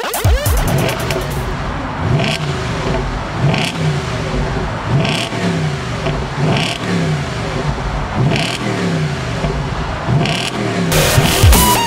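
Audi S4 Avant's 4.2-litre V8 revved again and again while standing, each blip rising and then falling back toward idle.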